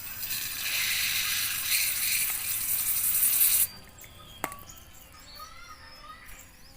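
A steady hiss of pressurised spray for about three seconds that cuts off abruptly, followed by a single sharp click.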